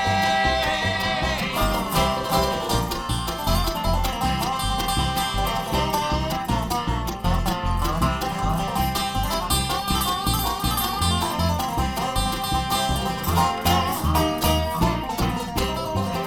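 Live bluegrass band playing an instrumental break between verses, with banjo and guitar picking over a steady bass beat.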